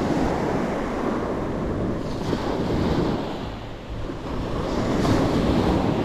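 Sea waves breaking and washing up the shore, the surf swelling about two seconds in and again near the end, with wind buffeting the microphone.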